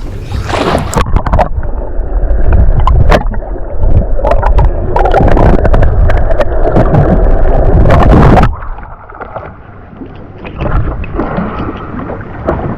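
Loud, muffled rushing and rumbling of water on the camera, with a few sharp knocks, dropping to a quieter wash about eight and a half seconds in.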